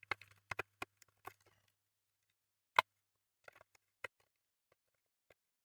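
Light clicks and taps of small plastic parts being handled and fitted together, with one sharper knock a little under three seconds in.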